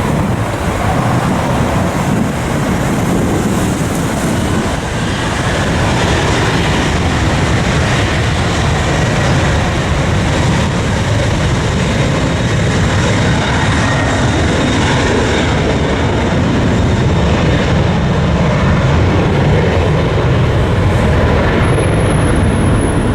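Jet airliner taking off: a loud, steady rush of engine noise at takeoff power, growing a little louder after about five seconds.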